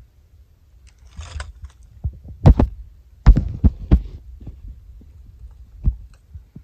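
Several dull knocks and thumps over a low rumble, with a brief rustle about a second in; most of the knocks come close together in the middle.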